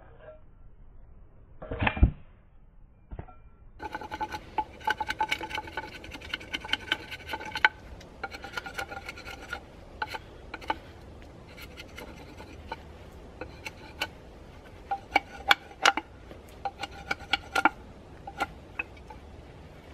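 A hatchet strikes wood once about two seconds in. From about four seconds in, a knife shaves and scrapes a green stick: a rasping scrape with many sharp clicks.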